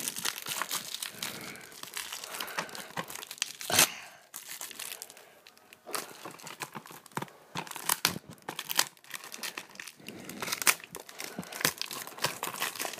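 Plastic shrink wrap crinkling and tearing as it is peeled off a Blu-ray case, in quick irregular crackles with one louder snap about four seconds in.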